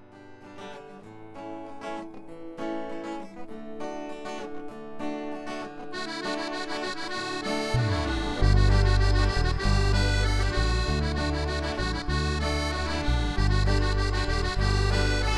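Instrumental music fading in and building, with a heavy bass line entering about eight seconds in.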